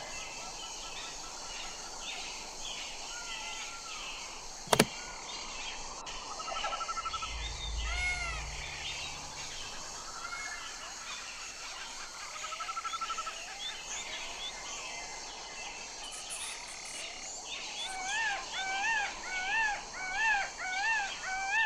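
Birds calling over a steady background hiss: many overlapping chirps and whistles, one sharp click about five seconds in, and near the end a louder run of repeated rising-and-falling calls, about two a second.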